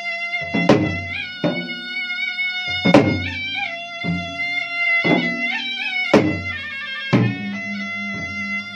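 Traditional Makassar gendang music: a puik-puik shawm plays a continuous, unbroken reedy melody over two double-headed gendang drums struck with hand and stick. The drums land heavy strokes about once a second.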